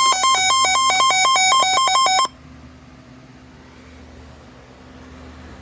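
Electronic alert tone for an emergency alert broadcast, switching between two pitches about four times a second. It cuts off suddenly about two seconds in, leaving a faint hiss and hum.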